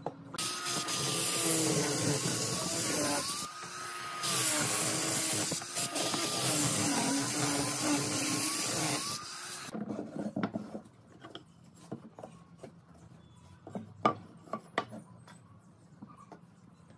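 Angle grinder with a sanding disc running against pine, sanding the wood; its motor pitch wavers as it is pressed and eased, with a short dip about three and a half seconds in. It stops just before ten seconds in, leaving only faint scattered taps.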